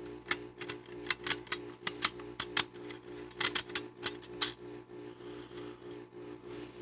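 Sharp metallic clicks and taps of steel pistol parts being handled, as the PHP MV's recoil spring is worked onto its guide rod during reassembly. The clicks come thick and irregular for about four and a half seconds, then only now and then.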